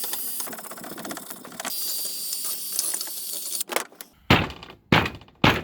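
Wire brush scrubbing rust and gunk off a cast metal water pump, a fast continuous scratching. Near the end it is followed by four sharp knocks about half a second apart.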